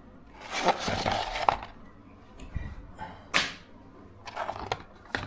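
Rustling, scraping handling noises from a sheet of 100-grit sandpaper being set up for knife thinning, with a sharp crack about three and a half seconds in.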